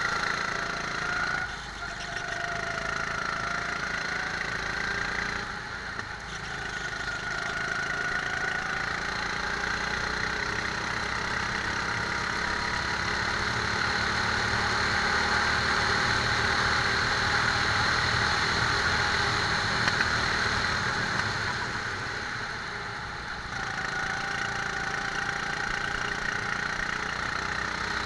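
Rental go-kart engine heard from the kart itself, its revs and loudness rising and falling through the lap. It eases off about a second and a half and six seconds in and again a little before the end, and pulls loudest and longest through the middle stretch, on the straight.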